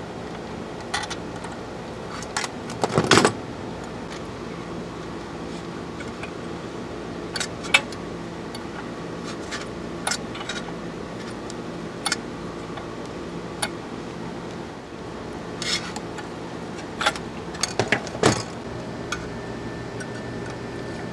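Scattered small clicks and metallic clinks of pliers, a soldering iron and wire leads being handled, with louder clusters about three seconds in and again near the end, over a steady low hum.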